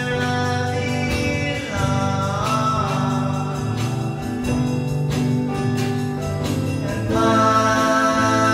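Recorded song: singing over sustained chords, with a light percussive tick. A note slides down about two seconds in, and the music grows fuller and louder about seven seconds in.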